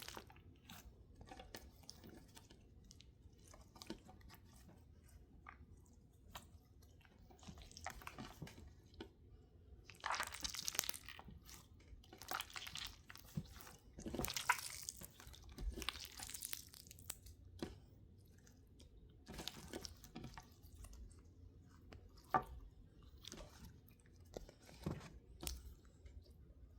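Slime being squeezed and pressed by hand, giving irregular small clicks, pops and squelches. There are louder flurries about ten seconds in and again around fourteen to seventeen seconds.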